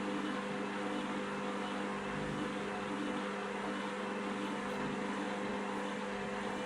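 Washing machine motor and drum running at a constant speed, a steady hum with no rise or fall in pitch.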